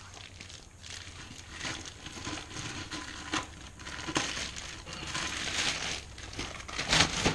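Hands handling and fitting motorcycle exhaust parts (muffler, clamp and mounting bracket): irregular rustling with scattered clicks and knocks, a little louder near the end.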